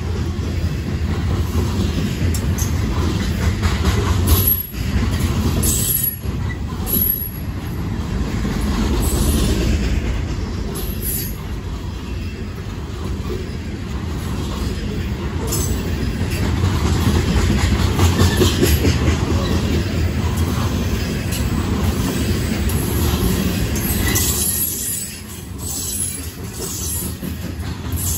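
Loaded coal hopper cars of a freight train rolling past close by: a steady low rumble of steel wheels on rail, broken by a few sharp clanks.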